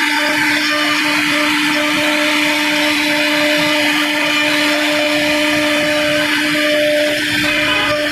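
CNC router spindle running steadily with a constant whine while the bit cuts into wood.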